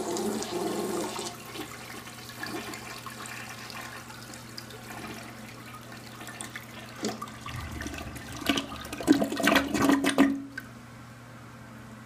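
A 1979 American Standard Cadet elongated toilet flushing: water rushes down the bowl, eases to a steady swirl, then the siphon gurgles loudly for about three seconds near the end. It cuts off suddenly to a steady faint hiss.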